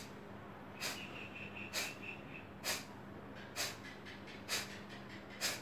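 Kapalbhati breathing: short, forceful exhalations through the nose, about one a second, six in all.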